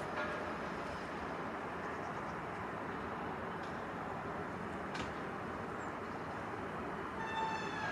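Caterpillar tracked excavator's engine running steadily. There is a single sharp click about five seconds in and a brief high-pitched squeal near the end.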